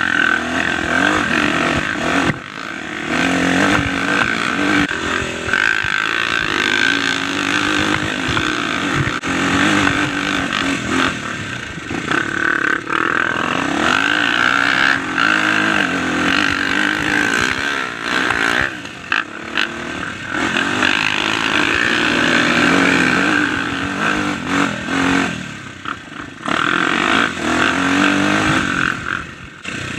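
Dirt bike engine revving up and down under a constantly changing throttle, close to the mic. There are brief lulls when the throttle is shut, about two seconds in, around the middle and again late on.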